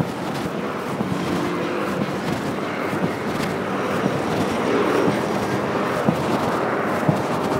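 City road traffic: a continuous wash of vehicle and tyre noise, growing a little louder around the middle as a vehicle passes, with a few scattered light clicks.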